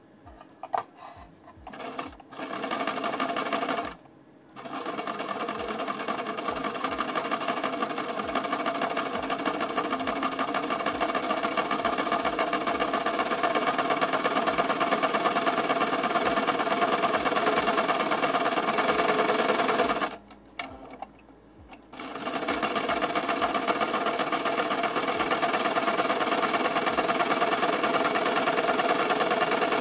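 Electric sewing machine stitching lace, with a fast even rattle of the needle. It starts and stops a few times at first, then runs in long steady stretches broken by two short pauses.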